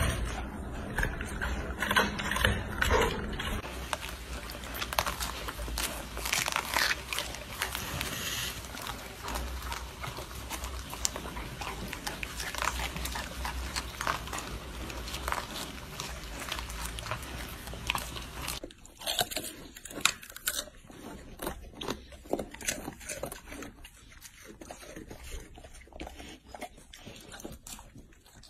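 Golden retrievers chewing raw vegetables such as carrot and sugarcane: a dense run of crunches and bites, sparser and quieter after a change about two thirds of the way through.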